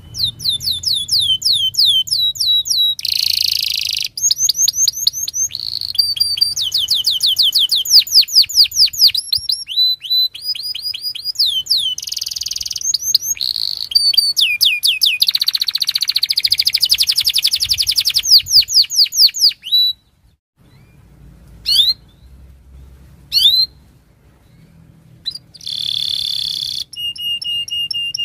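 Domestic canary singing a long song of fast trills and rapidly repeated sweeping whistles. About two-thirds through the song breaks off for a few seconds, with only a few short chirps, then resumes.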